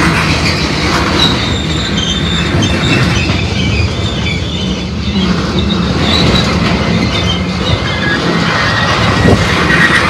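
Freight tank cars rolling past at close range: steady steel-wheel-on-rail rumble with knocks over the rail joints and short, faint high-pitched wheel squeals.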